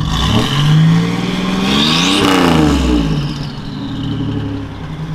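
1987 Buick Grand National's turbocharged 3.8-litre V6 revved through its new exhaust. It gives a short blip, then a bigger rev that climbs and falls back about two seconds in with a high whine rising along with it, and it settles lower near the end. It is an engine sound that does not sound like a normal V6.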